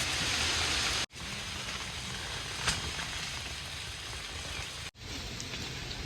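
Marinated chicken sizzling in a pan on a butane camp stove: a steady frying hiss, broken twice by very short gaps.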